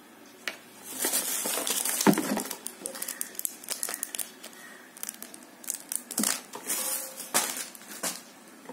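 Clear plastic packaging crinkling in the hands in irregular bursts, with sharp clicks of handling mixed in, heaviest a second or two in and again near the end.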